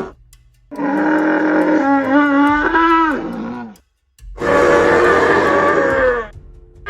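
Jurassic Park-style dinosaur roars: two long, pitched bellowing calls, the first wavering in pitch, each sliding down as it fades, with a short silence between them.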